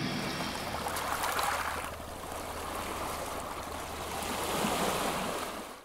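Small sea waves washing onto a shore, swelling and easing twice before fading out quickly at the end.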